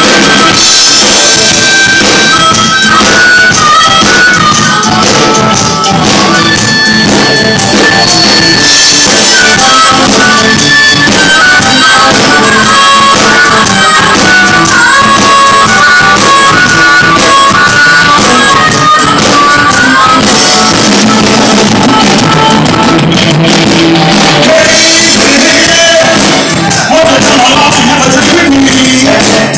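Live blues band playing, with electric guitar, bass and a drum kit, and a wavering harmonica lead over them, loud and close on the recording.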